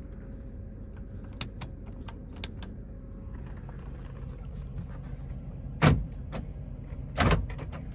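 Power door locks of a 1997 Chevrolet Tahoe clunking twice, about a second and a half apart, over the steady hum of the idling engine heard from inside the cabin. A few light clicks come in the first few seconds.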